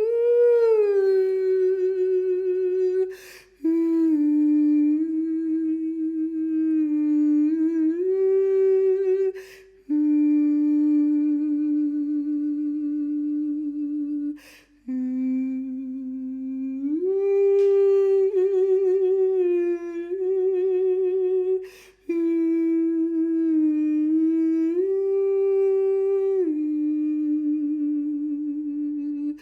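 A single voice humming long, held notes with a slight vibrato, stepping slowly between a few pitches, with four short breaths between phrases.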